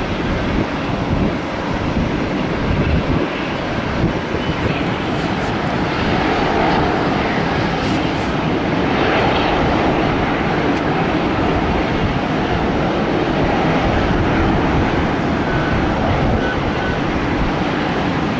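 Airliner engines running loud and steady, a broad rush of engine noise that grows slightly louder about six seconds in.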